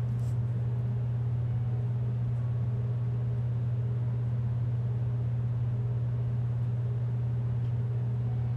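A steady low hum at an even level, with nothing else standing out.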